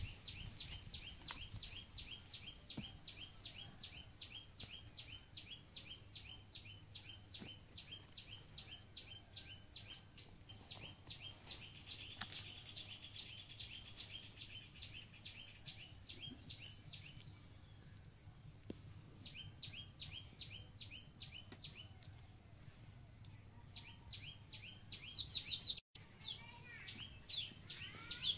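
A bird calling in long runs of quick, high chirps, each sliding downward, about three or four a second, with a few short pauses between bouts.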